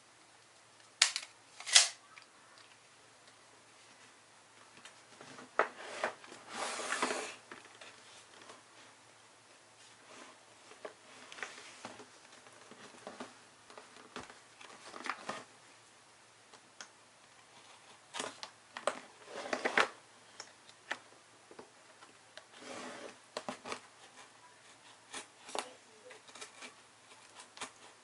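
A tape measure's blade snapping back into its case with two sharp clacks about a second in. Then a cardboard laptop box slides and scrapes on a wooden table, followed by scattered taps, scratches and rubbing of fingers on the cardboard and its tape seal.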